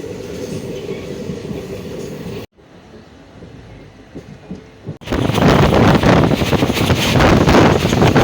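Passenger train running on the rails. The sound cuts off abruptly about two and a half seconds in to a quieter stretch, then jumps at about five seconds to a much louder, noisy rumble.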